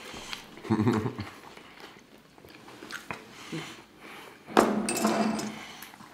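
Close-miked chewing and mouth sounds of people eating a fried catfish sandwich and fried shrimp. There is a short low "mm" about a second in and a louder crunchy bite with a hum about four and a half seconds in.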